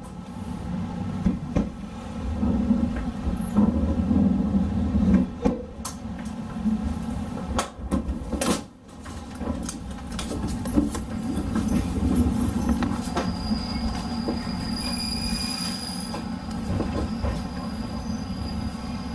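Hokutosei sleeper train rolling slowly through a station yard: a steady low rumble with scattered knocks and clicks as the wheels cross rail joints and points. A thin, high wheel squeal comes in over the last few seconds.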